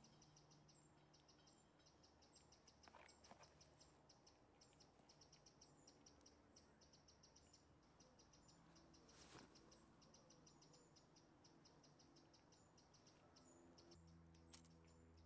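Near silence outdoors, with faint, rapid high-pitched insect chirping repeating a few times a second, and a couple of soft clicks.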